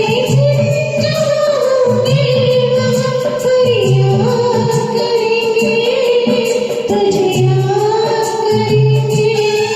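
A Hindi film song sung over a karaoke backing track. A female-sounding voice or melody line holds long, slowly gliding notes over a pulsing bass.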